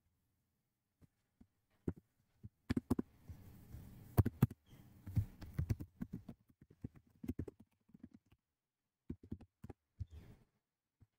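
Computer keyboard typing: short, irregular key clicks, busiest in the first half and thinning out toward the end.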